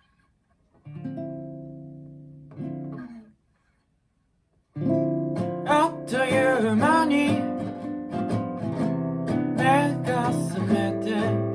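Acoustic guitar: a chord rings out about a second in, a second chord follows and is cut off, and after a short pause the guitar starts playing continuously, the song's intro.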